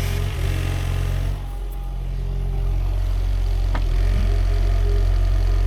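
Sany SY50U mini excavator's diesel engine running under hydraulic load while digging. The engine note eases off about a second and a half in and then builds again, with a single sharp knock near the middle.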